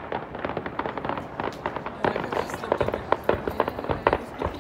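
Fireworks display: a rapid run of bangs, pops and crackles, growing denser and louder about two seconds in.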